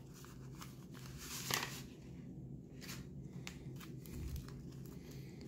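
Paper and plastic packaging rustling softly as gloved hands unwrap and turn it over, with small ticks and one louder crinkle about a second and a half in.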